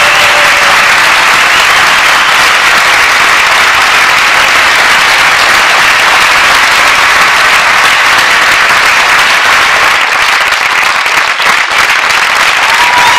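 Audience applauding, a dense, steady clapping that thins briefly about ten seconds in.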